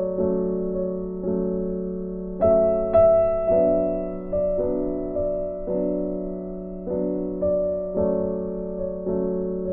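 Soft background piano music: slow notes and chords, a new one struck roughly every second, each ringing and fading away.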